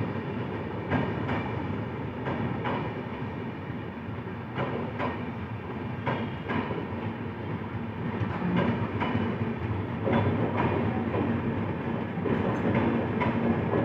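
Indian Railways express passenger train rolling through the station with a steady rumble, its wheels clicking over the rail joints about once a second.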